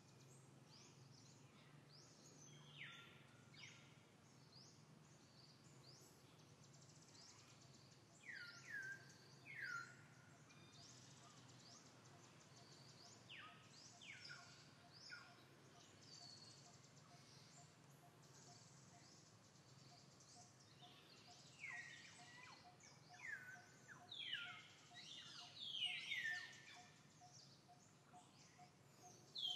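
Faint forest birdsong: short, sharp calls that sweep downward in pitch, coming in clusters, loudest near the end. A faint, rapidly pulsing note runs beneath them in the second half.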